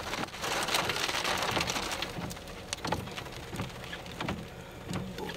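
Rain striking a car's windshield and roof, heard from inside the car: a steady hiss with many scattered sharp ticks of drops hitting the glass.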